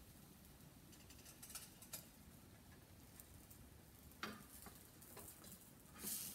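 Near silence, with a few faint clicks and light scrapes of a spatula against a nonstick frying pan as it is worked under a pancake that will not come loose to flip.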